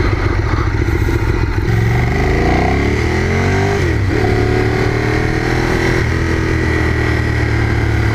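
2012 Ducati Streetfighter 848's L-twin engine accelerating away through the gears. Its pitch climbs for a couple of seconds, drops at an upshift about four seconds in, rises again, and steps down at another shift about six seconds in before holding fairly steady.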